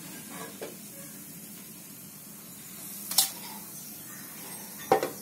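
Hot oil sizzling steadily in a kadhai after medu vadas are fried in it, with two sharp clinks of kitchen utensils, about three seconds in and again near the end.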